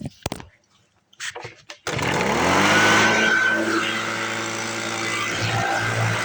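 Leaf blower switched on about two seconds in. Its motor spins up in a rising whine, then runs steadily at full speed with a loud rush of air.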